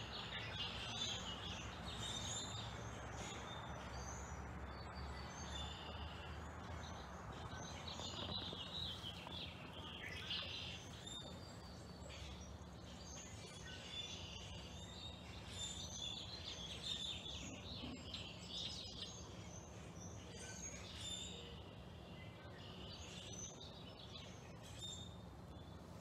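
A flock of black birds chirping and calling together in the treetops: many short, overlapping chirps, faint, over a steady low background rumble.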